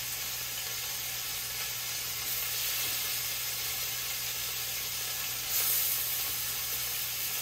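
Oxtail pieces frying in hot oil in a pan, a steady sizzle that briefly grows louder about five and a half seconds in.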